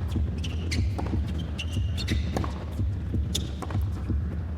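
Tennis ball bounces and hits on an indoor court, irregular sharp knocks, with a few short high squeaks from shoes, over a steady low hum of the hall.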